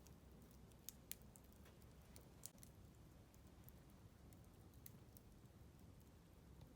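Near silence broken by a few faint, sharp crackles from a small wood campfire, about five scattered pops.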